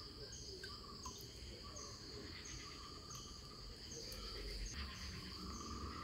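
Insects calling in the surrounding greenery: a faint, steady high buzz with short higher chirps repeating about every half second.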